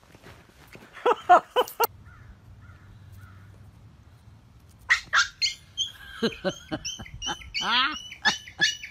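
Pets' high-pitched cries during rough play, in two bursts: a quick run of loud cries about a second in that cuts off sharply, then a longer string of high squeals and a falling whine from about five seconds on.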